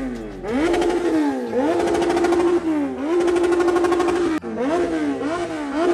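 Sport motorcycle engine being revved over and over: the pitch climbs quickly, sags back down and is held steady at high revs for a second or so between blips. The sound breaks off sharply for an instant about four and a half seconds in.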